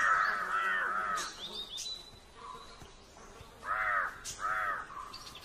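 Crows cawing: a quick run of overlapping caws in the first second or so, then two separate caws near the end, with faint higher chirps in between.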